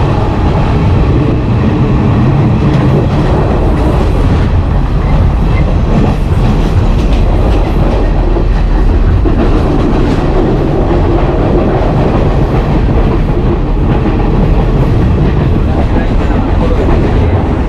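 Passenger train running, heard from inside a carriage with open windows and door: a loud, steady rumble of the wheels on the rails.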